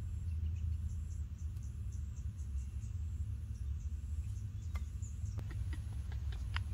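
An insect singing a high-pitched song of short, evenly spaced pulses, a little over one a second, over a steady low rumble. Faint high chirps come and go, and a few light clicks sound near the end.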